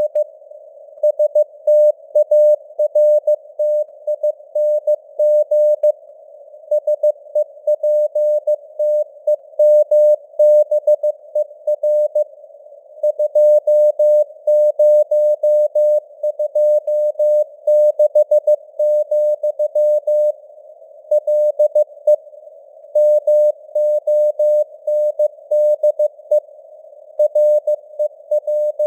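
Morse code sent at 15 words per minute: a single steady-pitched tone keyed on and off in dots and dashes over a narrow band of simulated radio static, with longer pauses between words.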